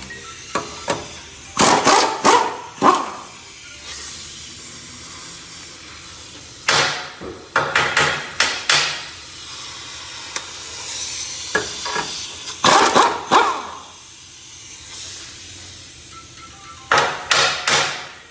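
Rapid metallic hammering in four short bursts as a tool works the 15 mm fastener of a pickup's sway bar link loose.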